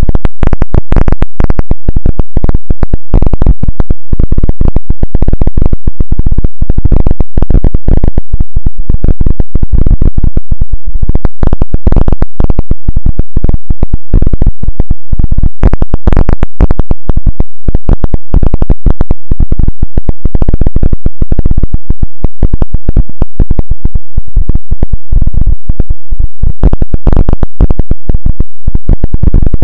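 Loud, heavily clipped electronic noise, densely crackling and stuttering, heaviest in the bass.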